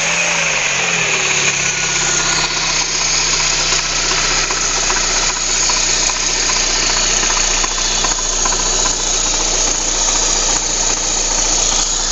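Lada Kalina's 1.4 16-valve VAZ-11194 engine running just after a start, its speed dropping in the first second or two and then idling steadily, with an extraneous knock the owner has noticed.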